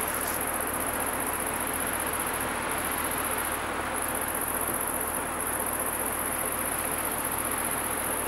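Steady high-pitched chirring of insects, over a low, even rumble.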